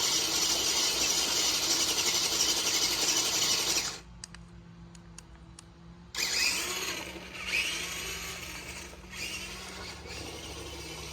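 Radio-controlled monster truck's motor running hard as the truck spins donuts on dirt, with its tyres spinning. The motor cuts out about four seconds in for roughly two seconds, then comes back in several short revving surges.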